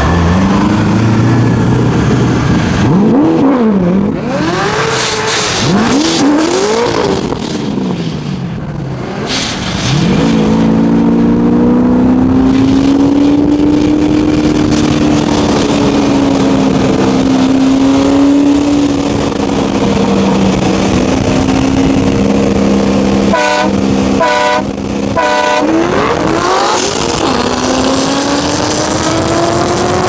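Two modified Corvette V8s running on the street. Their pitch rises and falls with revving and gear changes for the first several seconds, then holds steady and climbs slowly. About 24 seconds in there are three short horn honks, and right after them the engines rev up hard with a steadily rising pitch.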